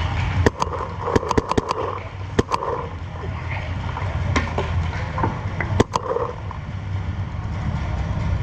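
Paintball markers firing in irregular bursts of sharp cracks: a quick string of about eight shots in the first two seconds, then a few scattered shots and a close pair near six seconds in. A steady low rumble sits underneath.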